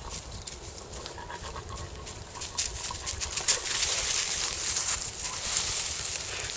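Dry fallen leaves rustling and crunching under footsteps and paws. It grows louder and busier about two and a half seconds in.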